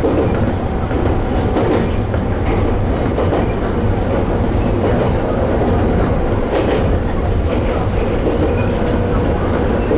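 Toyama Chiho Railway Tateyama Line electric train running along the track: a steady rumble of wheels and running gear, with occasional faint clicks.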